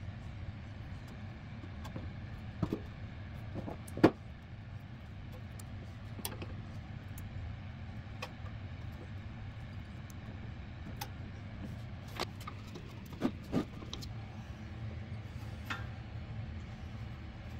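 Scattered light clicks and knocks of hand-handled parts on a benchtop drill press's belt-and-pulley head, over a steady low hum. The loudest knock comes about four seconds in, and a close pair follows a little after the middle.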